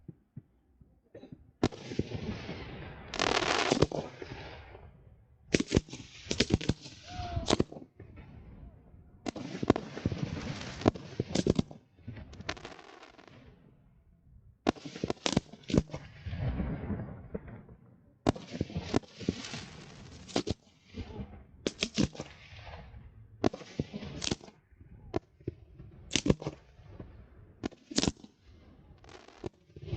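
Fireworks display: sharp bangs of bursting shells at irregular intervals, several in quick clusters, with a noisy rumble and crackle filling the gaps between them.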